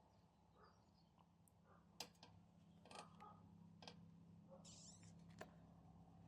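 Near silence: a low steady hum with a few faint clicks and a brief soft hiss about four and a half seconds in.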